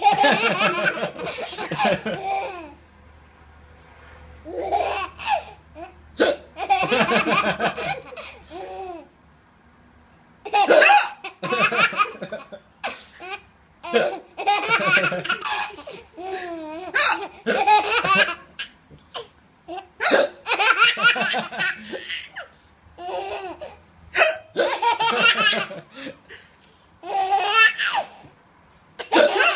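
A baby laughing in repeated high-pitched bursts every two to three seconds, the laughter broken up by hiccups.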